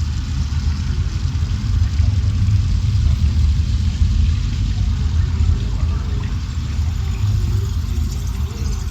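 A steady low rumble with no clear beginning or end, heaviest in the deep bass, with a faint wash of higher noise over it.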